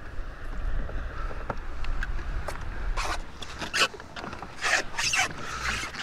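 Short scraping, zip-like rustles of fishing tackle being handled, bunched in the second half, over a steady low rumble of wind on the microphone.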